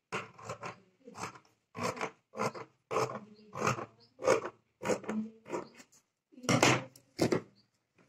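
Scissors cutting through blouse fabric: a run of about a dozen snips, roughly one or two a second.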